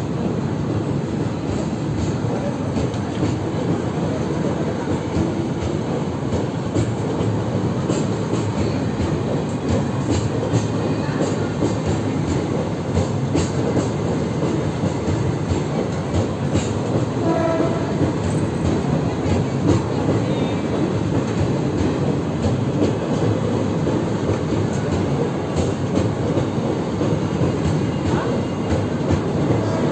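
Passenger coaches of an express train rolling slowly past a platform as it pulls out: a steady rumble with wheels clicking over rail joints. A short wheel squeal comes a little past halfway.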